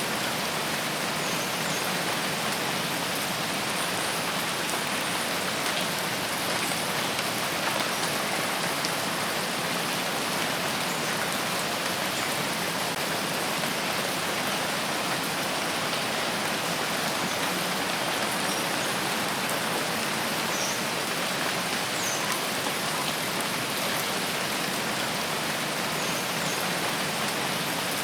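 Steady rain falling on a forest, an even hiss with scattered drops.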